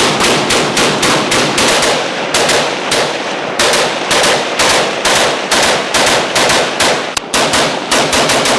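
Rapid firearm shots, about five a second, in long strings broken by brief pauses about two, three and a half, and seven seconds in.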